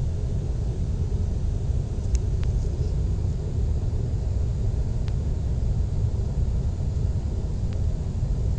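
Jet airliner cabin noise in flight: a steady low rumble of engines and airflow heard from a window seat, with a few faint clicks.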